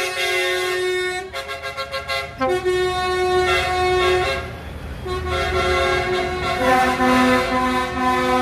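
Vehicle horns sounding from a passing convoy of a lorry and tractors: long held blasts and, about a second in, a fast run of short toots. Underneath runs the low sound of the vehicles' engines, growing louder in the second half as the tractors come past.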